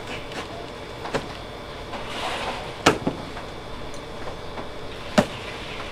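Cardboard box of a pressure washer being opened and handled: a few sharp knocks and thumps, the loudest about three seconds in and again about five seconds in, with a brief rustle just past two seconds.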